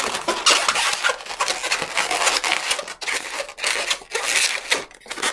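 Inflated 260Q latex modelling balloon being twisted and handled, in a continuous run of rubbery squeaks and rubbing.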